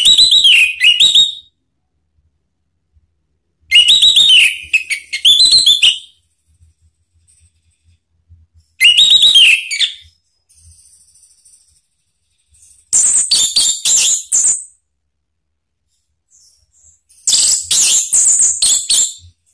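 Orange-headed thrush singing: five loud whistled song phrases, each a quick run of notes lasting a second or two, separated by pauses of a few seconds.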